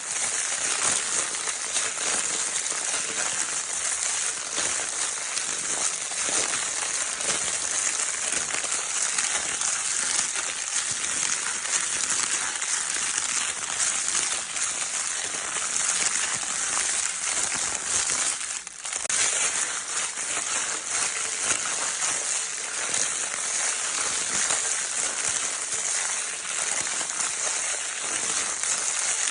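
Crinkle paper in a baby's crinkle toy being scrunched and rustled without pause: a dense, steady crackling, with a brief dip about two-thirds of the way through.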